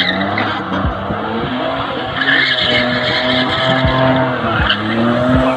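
Car doing a burnout: the engine is held at high revs, its pitch rising and falling, while the rear tyres spin and squeal.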